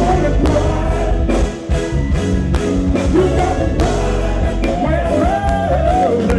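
Live R&B/funk band playing, with a heavy bass line, a steady drum beat and voices singing, loudest in sustained sung lines in the second half.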